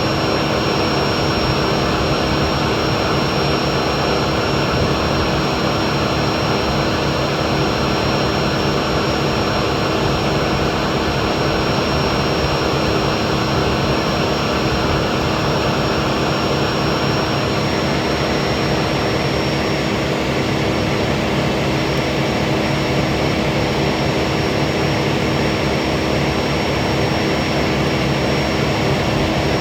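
Heavy track-repair machinery engine running steadily, with a thin high whine over it.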